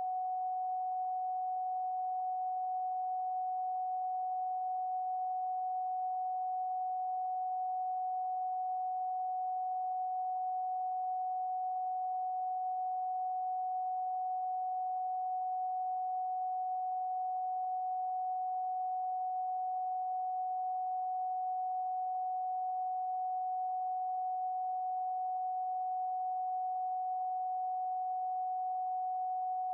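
A steady electronic pure tone held without change, with a fainter high-pitched tone above it and a soft hiss around the main tone: a generated meditation 'protection frequency'.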